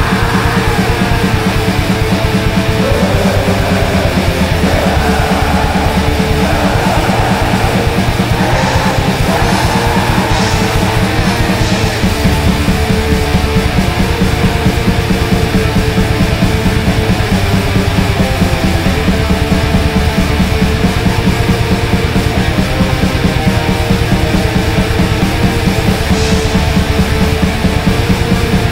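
Black metal: loud, heavily distorted guitars over fast, even, rapid-fire drumming.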